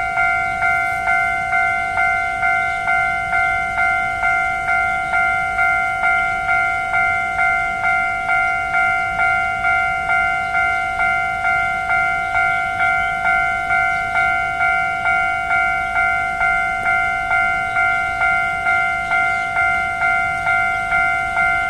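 Level crossing warning bell ringing in a fast, even repeating rhythm: the signal that a train is approaching and the barriers are down.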